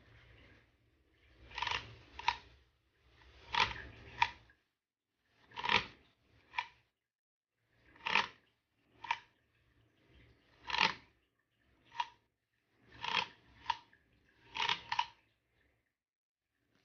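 Resulta 7 mechanical adding machine being worked: seven pairs of sharp metal clacks, one about every two seconds, each pair about half a second apart.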